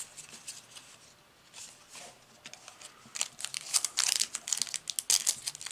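Foil wrapper of a Yu-Gi-Oh booster pack crinkling as it is handled and pressed flat. It is faint and sparse at first, then dense and louder from about halfway through.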